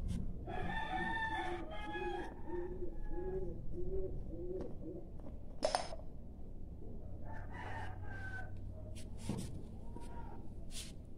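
A chicken calling, a run of about seven short, evenly spaced rising-and-falling notes over the first few seconds, with fainter calls later. There is a single sharp click about halfway through.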